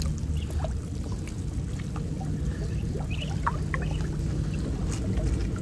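Water sloshing and splashing around a person wading chest-deep in a river, with small drips and splashes as a gill net and its bamboo poles are handled, over a steady low rumble.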